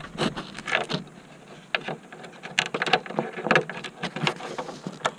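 Irregular clicks, taps and light rattles of hands handling a loosened gauge cluster and its bulb sockets and cables behind the dash.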